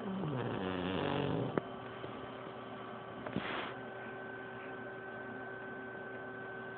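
Pug snoring in its sleep: one long snore in the first second and a half, its pitch falling, then a shorter, breathier snore about three and a half seconds in, over a steady background hum.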